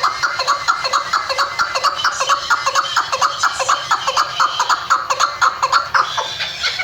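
Chukar partridge calling: a fast, steady run of repeated chuck notes, about four to five a second.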